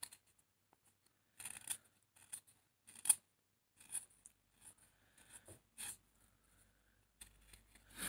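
Carving knife shaving slivers off a wooden butter-knife blank by hand: a series of short, faint slicing strokes at an irregular pace.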